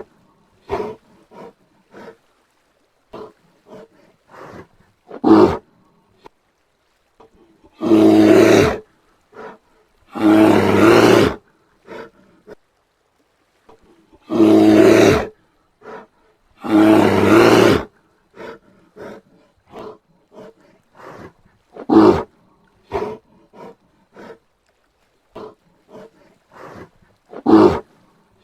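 Brown bear roaring: two pairs of long roars, each about a second, the second pair some six seconds after the first, with short sharp calls and faint brief sounds in the gaps.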